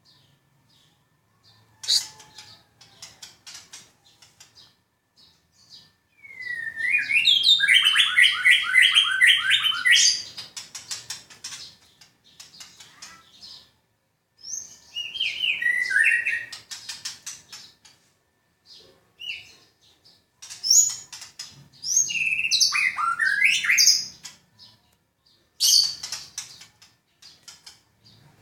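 An 11-month-old white-rumped shama (murai batu) singing: four loud bursts of rapid, rattling notes and rising whistles, the longest about four seconds, with short clicks and chips in the pauses between them.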